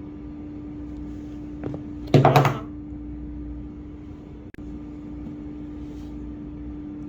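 Handling noise over a steady low hum: a short, loud clatter about two seconds in, and a sharp click about halfway through.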